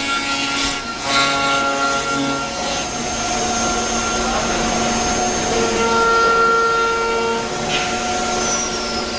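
Woodworking CNC router with automatic tool changer cutting wood: a steady spindle whine and several machine tones over the hiss of the bit in the timber, the tones shifting as the head moves. Near the end a high whine begins to fall in pitch.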